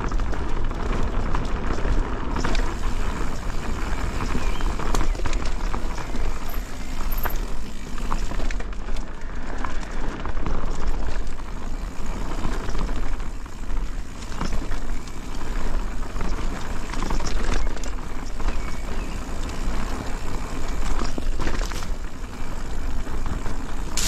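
Specialized Kenevo Comp e-mountain bike ridden fast over a dirt forest trail: tyres rolling over dirt and leaves, with frequent small clicks and rattles from the bike, under a steady rumble of wind on the action camera's microphone.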